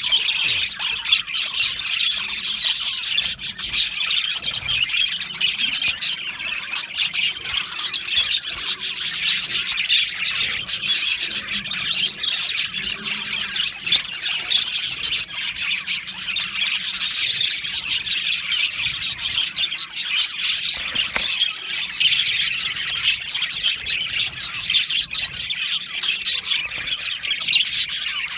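A flock of budgerigars chattering continuously, many birds at once, with overlapping warbles, chirps and squawks.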